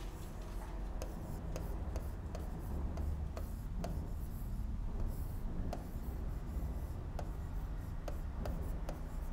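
Stylus writing on an interactive whiteboard screen: irregular light taps and short scratchy strokes as letters are written.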